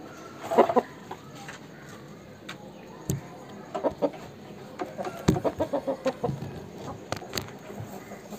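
Chickens clucking in short bursts of calls, a cluster about half a second in and a longer run in the middle, with a few sharp knocks in between.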